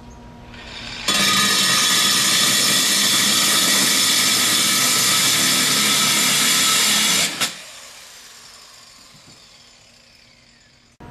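Angle grinder driving a 2.5-inch diamond core bit into a concrete roof tile to widen a misdrilled hole: about a second in it starts grinding loudly and steadily for about six seconds, then stops, and the motor winds down with a slowly falling whine.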